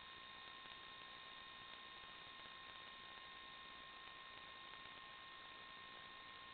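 Near silence: a faint, unchanging hiss with a few steady high tones, recording noise with no flight or motor sound in it.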